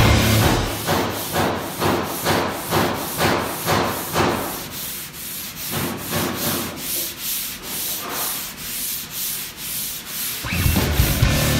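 Long sanding block with sandpaper rasping back and forth over guide-coated primer on a car hood, about three strokes a second, softer after the first few seconds. The strokes wear through the dark guide coat to show the high and low spots. Music comes in near the end.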